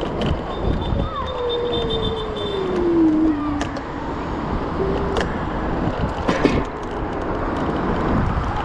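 Street and traffic noise during an electric scooter ride, with a steady rumble of road and wind noise. A whine falls slowly in pitch from about a second in to past three seconds, and a few sharp knocks or rattles come later.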